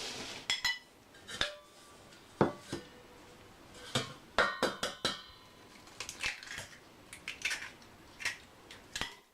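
A string of irregular clinks and knocks from a dish and utensils being handled, some ringing briefly, as eggs are set out for an omelette.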